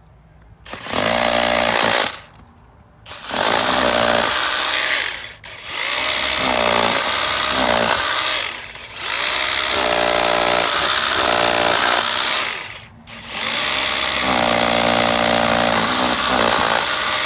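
Makita 12V cordless rotary hammer drilling into cinder brick. It runs in about five bursts of two to four seconds each, with short stops between them.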